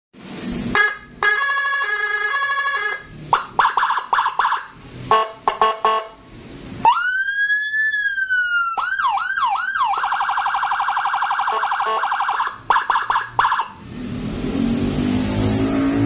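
Custom 60-watt Whelen HHS-style police escort siren sounding through a horn speaker, switched through several of its tones: short stuttering blasts, a single slow rising and falling wail, a few quick yelps, then a fast, even warble for a couple of seconds. Near the end it changes to a lower-pitched tone.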